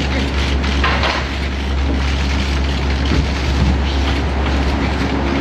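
Steady low hum under a dense, even noisy rumble, the ambient sound of the news footage.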